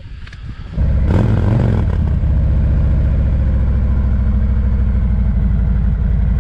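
Royal Enfield Himalayan's single-cylinder engine starting about a second in, with a brief rise in revs, then settling into a steady idle with an even low pulse.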